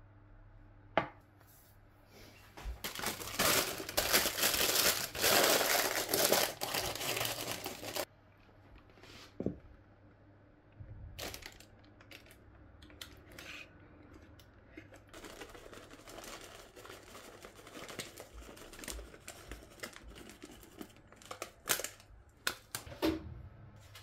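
Loud crinkling and tearing of crinkly paper or packaging for about five seconds, followed by softer rustling and a few sharp clicks and knocks of kitchen work.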